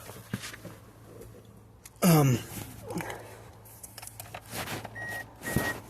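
2003 Pontiac Vibe's warning chime beeping in a steady on-off pattern, about two beeps a second, starting about five seconds in. Before it, a few clicks and knocks and one loud brief sound sliding down in pitch about two seconds in.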